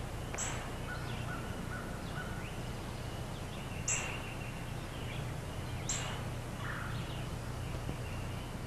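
Woodland birds calling: sharp high chirps a couple of seconds apart, and a few thin whistled notes, over a steady low hum.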